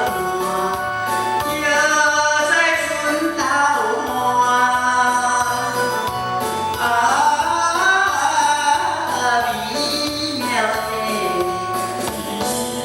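A man singing a slow song over backing music played through a classroom PA system during a sound test, his notes held and gliding in pitch.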